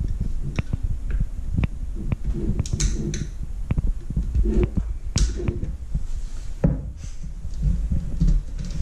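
A metal pick prying the old O-ring out of the groove in the plastic housing of a Dosatron D9 dosing pump: scattered small clicks and light knocks several times a second, with the housing being handled and turned.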